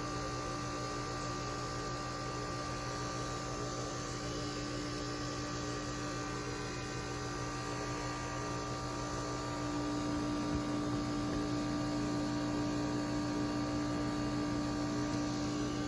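A steady low hum made of several held tones, getting slightly louder about ten seconds in.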